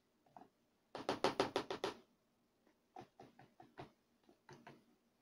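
A spoon stirring a thick cocoa and honey paste in a plastic bowl, clicking against the bowl. About a second in comes a quick run of about ten clicks in one second, then slower, softer clicks.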